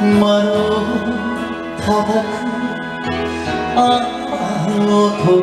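Man singing a song into a handheld microphone over a karaoke backing track, his voice amplified and loud over the accompaniment; long held notes waver with vibrato.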